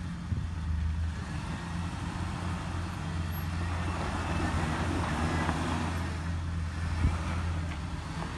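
Lifted Jeep Cherokee XJ's engine running steadily as it crawls up a steep rock step, with a rush of tyre and gravel noise in the middle and a sharp knock about seven seconds in.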